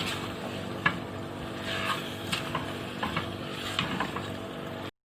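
Beef cubes and onions frying in ghee in a pot, sizzling steadily while being stirred, with short scrapes and knocks of the stirring utensil against the pot at irregular intervals. The sound cuts off abruptly near the end.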